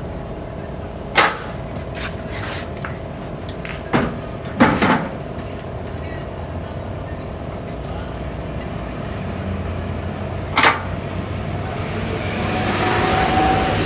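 A few sharp knocks and clicks from dryer parts being handled during reassembly, over a steady background hum. A hiss swells near the end.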